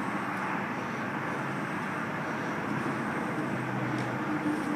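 Steady outdoor vehicle noise with a faint low hum.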